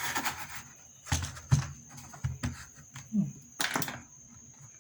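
A plastic computer keyboard being handled: a series of separate knocks and clicks as it is moved and set down, with a short rustle at the start.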